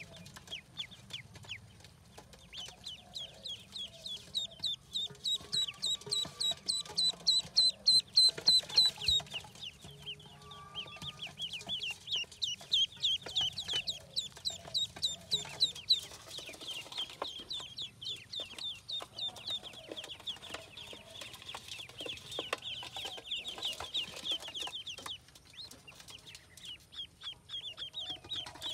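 A brood of ducklings peeping, with many rapid high-pitched peeps overlapping in a continuous chorus. The peeping is loudest between about four and nine seconds in.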